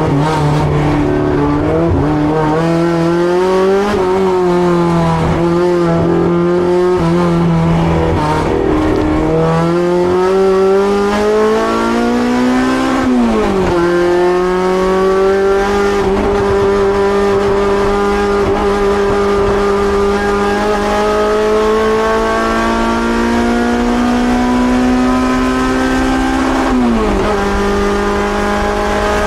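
Race car engine, likely the Honda Civic EG6's B18C four-cylinder, running hard: its pitch rises and falls for the first several seconds, then climbs steadily and drops sharply at two upshifts, about halfway through and near the end.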